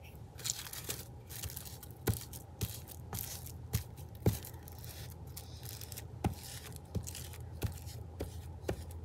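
Thin sewing-pattern tissue paper rustling and crinkling as it is handled, with a glue stick rubbed over a book page and scattered small taps and clicks.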